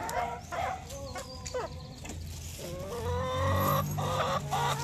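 A flock of chickens clucking and squawking in quick, overlapping short calls as they crowd in at feeding time, getting busier in the second half.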